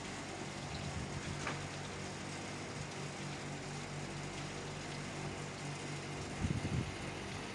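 A steady low mechanical hum with a hiss over it, and a few soft low knocks near the end.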